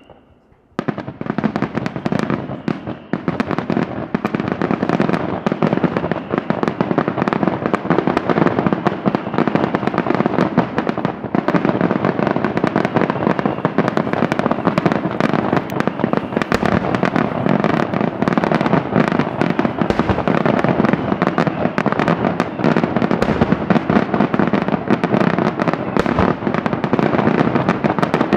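Daytime display fireworks: after a brief hush, a dense barrage of aerial bangs starts about a second in and carries on without letup, the reports overlapping into one rapid crackling din.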